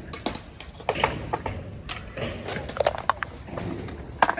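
A run of irregular, sharp clicks and knocks, a few at a time, with a sharper one near the end.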